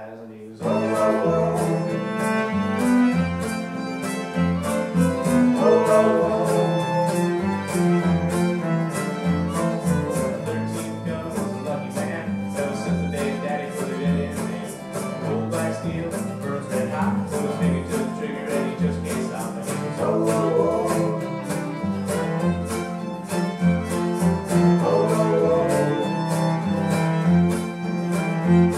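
Acoustic string band playing a song: fiddle carrying the melody over strummed acoustic guitar, cello and acoustic bass guitar. The band comes in together about half a second in, with a steady strummed beat and repeating bass notes.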